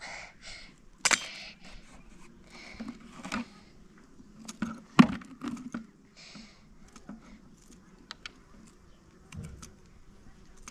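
Scattered light clinks, taps and rustles of small objects being handled, with a sharp knock about a second in and the loudest one about five seconds in.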